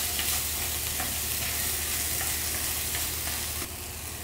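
Octopus pieces sizzling in oil in a nonstick frying pan while being stir-fried with wooden chopsticks, with a few light clicks of the chopsticks against the pan. Near the end the stirring stops and the sizzle gets quieter.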